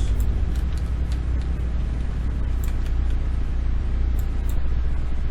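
Steady low hum of the recording's background noise, with a few faint clicks.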